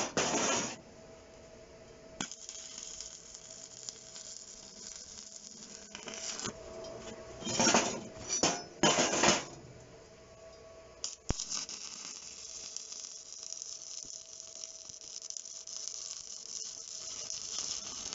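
Stick (arc) welding: the electrode's arc crackling and hissing in runs, the longest and steadiest from about eleven seconds on, with a few short loud sputters around eight to nine seconds.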